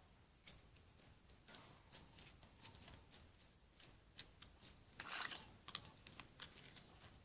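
Faint, scattered soft clicks and crackles of hands handling slime and its plastic container, a little louder about five seconds in.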